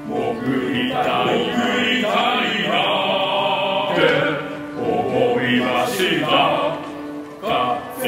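Male voices singing in two-part chorus, a graduation-choir arrangement, in long sung phrases with short breaths between them.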